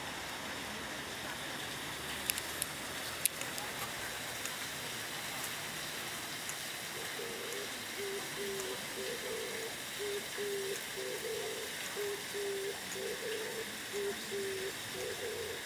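Steady outdoor hiss, with a few sharp clicks two to three seconds in and, from about halfway, a repeated low call of short notes, about two a second.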